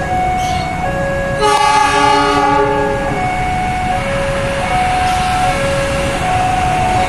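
Level-crossing warning alarm sounding two steady tones, a lower and a higher, in turn about every 0.7 s. About a second and a half in, the approaching locomotive sounds its horn once for just over a second.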